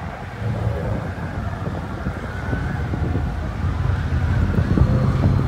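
Car engines running in slow queued traffic, mixed with wind rumbling on the phone's microphone; the rumble grows louder toward the end.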